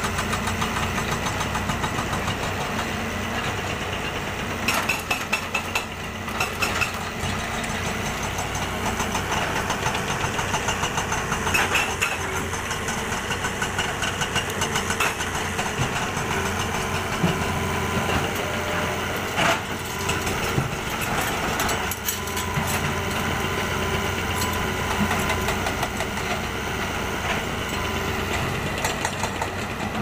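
Diesel engines of crawler excavators running steadily, with scattered sharp clanks and knocks of rock being dug and loaded into a dump truck.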